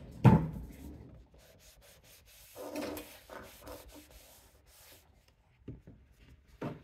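A sharp knock, then a few seconds of rubbing as excess oil is wiped off a model railway switch, with a couple of light ticks near the end.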